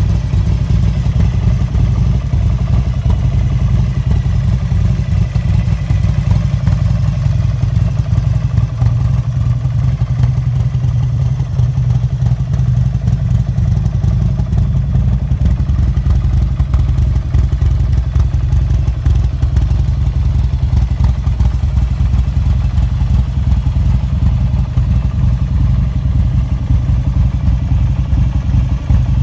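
Buell motorcycle's air-cooled V-twin engine running with a steady, unchanging beat.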